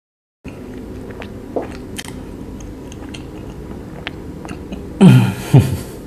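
After about half a second of dead silence, close-miked mouth sounds of a man chewing a soft steamed bun: faint scattered clicks and smacks over a steady hiss. Near the end comes a short, loud voiced hum that falls in pitch.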